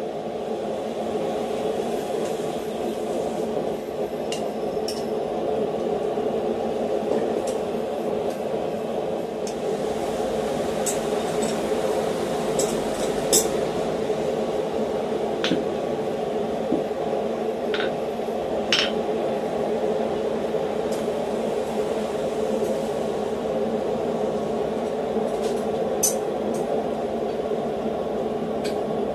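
Steady roar of a running blacksmith's forge, with a few light metallic clinks of tongs and steel scattered through.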